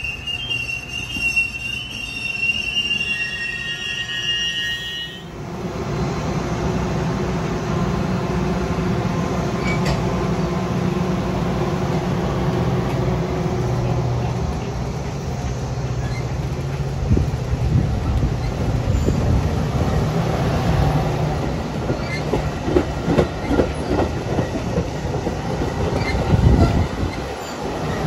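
Metra bilevel stainless-steel commuter coaches rolling past close by. A high metallic squeal from the running gear lasts the first five seconds, then gives way to a steady rumble of wheels on rail. From about two-thirds of the way in, a quick series of clicks sounds as the wheels cross rail joints.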